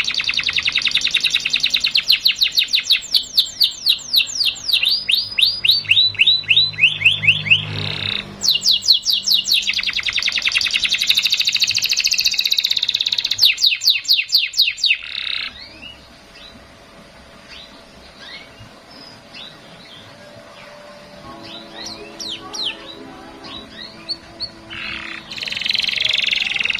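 Canary singing: long, rapid trills of repeated high notes, one run slowing into a falling series of notes, for about the first fifteen seconds, then quieter scattered chirps and short phrases, with a louder burst of song near the end.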